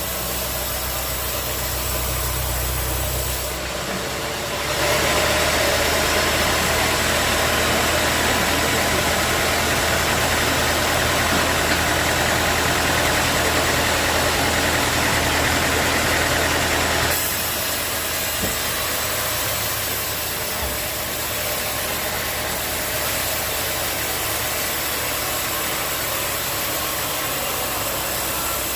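Sawmill engine running steadily. From about five seconds in until about seventeen seconds, a louder, harsher hiss rides over it as the saw cuts through a teak log, then it drops back to the engine alone.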